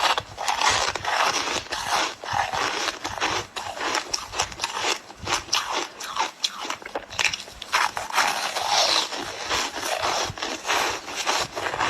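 Ice being bitten and chewed close to the microphone: a rapid, irregular run of sharp, crackling crunches.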